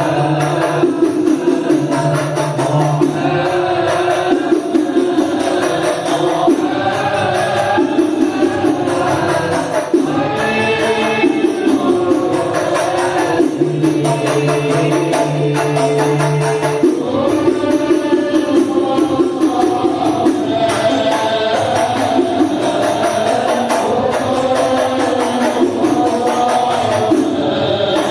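Islamic sholawat song: voices singing a chant-like melody over continuous frame-drum and jingling tambourine percussion.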